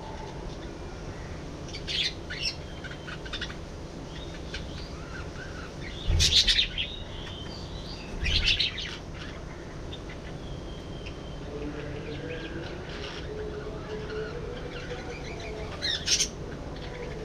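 Budgerigars chirping and chattering, with louder, harsh bursts about two, six, eight and sixteen seconds in.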